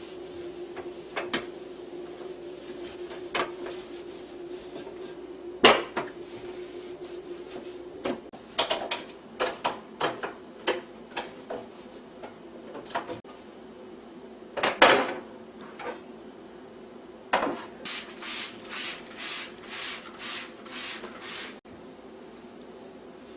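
Household handling sounds: scattered knocks and clatter of dishes and wooden items, with a faint steady hum at first. Near the end comes a run of about eight short hissing strokes, roughly two a second.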